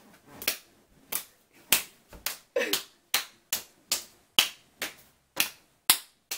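Bare hands and feet clapping together, skin on skin, in a quick run of sharp slaps at about two a second.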